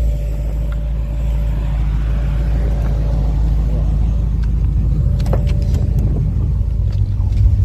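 A car running at a steady speed, with a heavy, even low rumble of engine and road noise and a faint steady whine.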